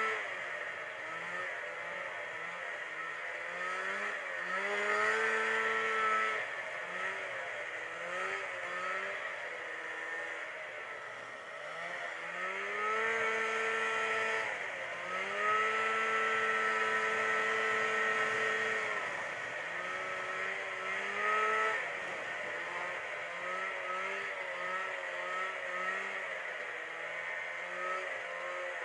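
Snowmobile engine running under way. Its pitch rises and falls as the throttle is opened and eased off several times, and it is held high for a few seconds at a stretch, longest in the middle.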